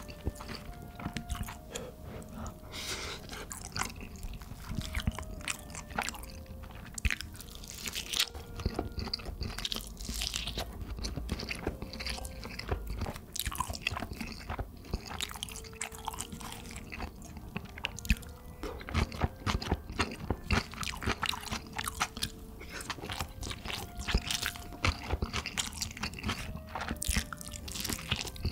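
Chewing and repeated crisp crunching as a person eats fried meat and rice from a convenience-store lunch box, with soft background music under it.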